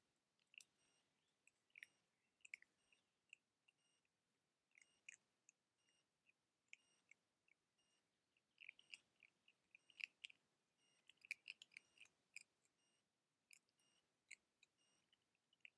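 Faint, short, high-pitched squeaks and clicks from young red fox cubs playing at the den, scattered and thickest a little past the middle.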